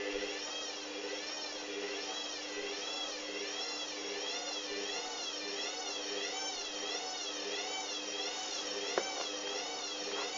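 Hoover Dynamic washing machine running, its motor whine rising and falling a little more than once a second over a steady hum, with one sharp click about nine seconds in.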